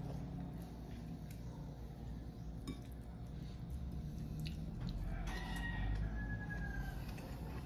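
A rooster crowing once, a drawn-out call about five seconds in, over a steady low hum and a few faint clicks.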